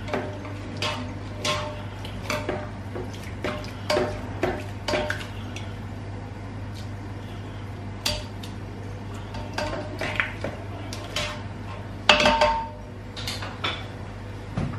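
A spoon knocking and scraping against a large aluminium cooking pot as mutton and spices are mixed: irregular clicks and clatters, some ringing briefly, with the loudest clatter about twelve seconds in.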